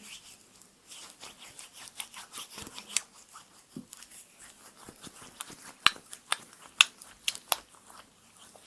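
Close-miked, irregular sharp clicks and crackles from hands handling things, with a few louder sharp clicks in the second half.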